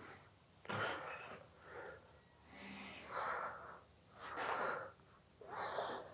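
A person's breathing close to the microphone: several slow, noisy breaths in and out, quiet.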